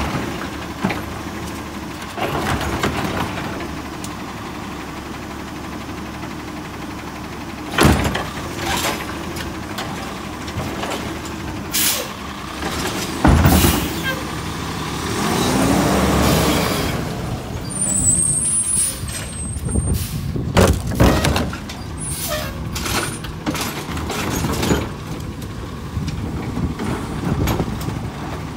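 Natural-gas automated side-loader garbage truck running, its air brakes hissing sharply several times. About halfway through the engine revs up and back down as the truck pulls forward to the next carts.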